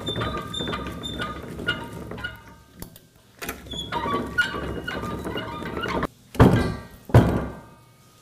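Hand-cranked apple roller mill turning, its spiked feed shaft and rollers clattering as they crush the last apple pieces, with faint high squeaks and a brief pause about three seconds in. The milling stops about six seconds in, and two heavy thumps follow.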